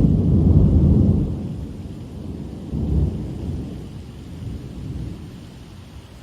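Thunder rumbling and dying away, with a second, weaker roll about three seconds in, over steady rain.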